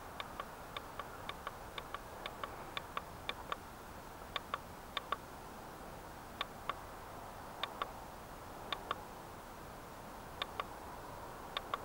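Small plastic buttons clicking, mostly in quick pairs at irregular intervals, faint over a steady hiss: buttons being pressed to step through channels while searching for the FPV camera's video signal.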